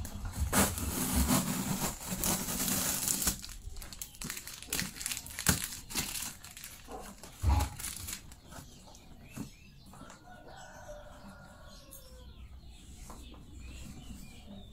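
Plastic packaging crinkling and rustling as it is handled, followed by a run of scattered knocks and taps that thin out over the next several seconds.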